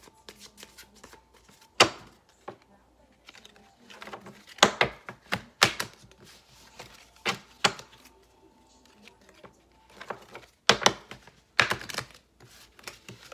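Tarot deck being shuffled by hand: sharp card slaps and taps in small irregular clusters, a second or more apart.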